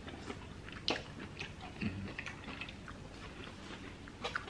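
Close-miked chewing and biting: wet mouth clicks and smacks of someone eating, with a sharper click about a second in.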